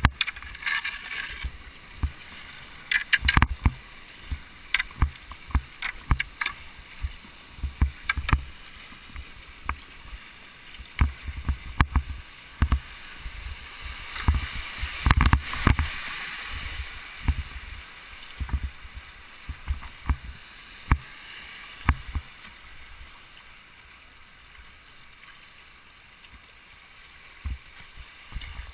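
Whitewater kayak being paddled down a river rapid: a steady rush of moving water with frequent knocks and splashes from the paddle strokes and water slapping the plastic hull. The water rush swells about halfway through and settles down later.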